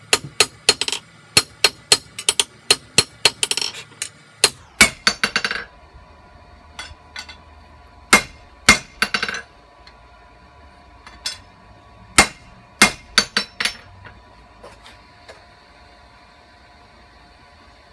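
Hand hammer striking leaf spring steel on an anvil while forging a knife blade. A quick run of blows comes first, about three a second for some six seconds, then scattered single blows, with a ringing tone hanging on between them.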